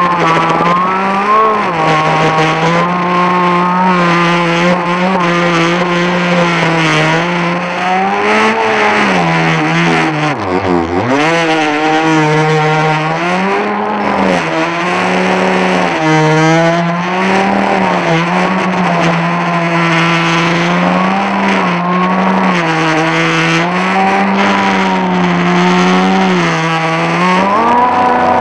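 Arrow Shark RC boat's motor running hard, its pitch wavering up and down with throttle and dipping sharply about ten seconds in before climbing back, over the hiss of water rushing against the hull.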